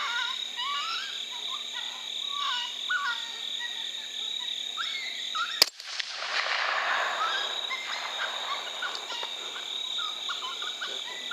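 Short, high animal-like calls that glide up and down and repeat, over a steady high-pitched tone. A single sharp click comes a little past halfway, followed by a couple of seconds of hiss, and then the calls carry on.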